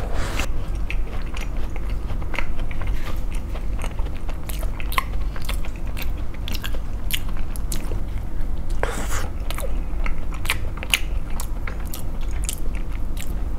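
Close-miked biting and chewing of a custard tart with a crisp pastry crust: the crust crackles and crunches with many small sharp clicks as it is chewed, with a bigger bite near the start and another about nine seconds in.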